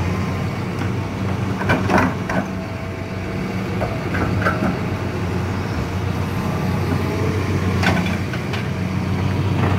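Heavy diesel equipment running steadily, the tracked dump carrier and a Hitachi 200LC excavator, while the excavator loads sand into the carrier's steel dump bed. Short knocks and clanks from the bucket and the dumped load come about two seconds in, around four and a half seconds in, and again near eight seconds.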